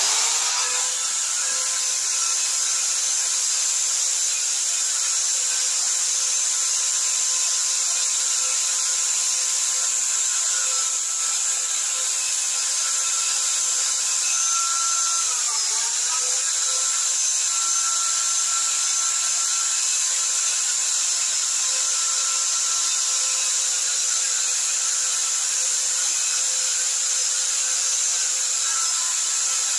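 Electric bench grinder running at steady speed while a steel drill bit is ground against its sanding disc. There is a hum with a few steady tones under a strong high-pitched abrasive hiss. The pitch sags briefly about halfway through as the motor is loaded.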